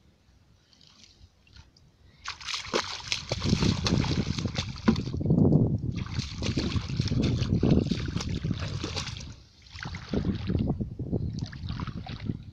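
Splashing and sloshing of legs wading through shallow muddy water, in uneven bursts starting about two seconds in, with a brief lull shortly before the end.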